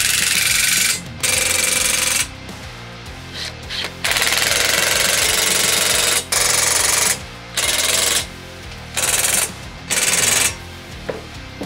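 Cordless impact driver hammering in about seven bursts, the longest about two seconds, as it runs down the bolts on the bearing hangers of a go-kart's live axle.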